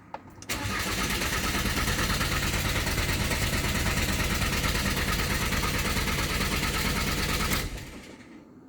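Starter motor cranking a Jaguar X-Type's 2.0 four-cylinder diesel for about seven seconds with a click as it engages. The engine turns over but never fires: a crank-no-start with an injector circuit fault (P0200) logged. The cranking cuts off suddenly near the end.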